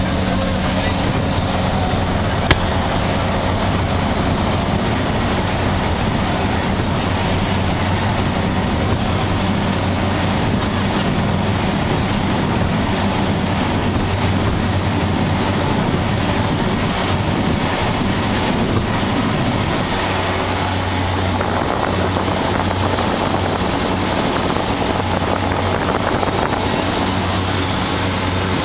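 Light propeller aircraft's engine and propeller heard from inside the cabin: a loud, steady drone with a low engine hum. A single sharp click comes about two and a half seconds in, and about twenty seconds in the engine note settles into a steadier, slightly quieter hum.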